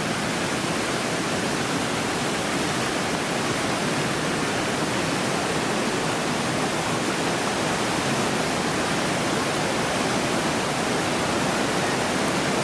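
Mountain waterfall rushing: a loud, steady, even wash of falling water.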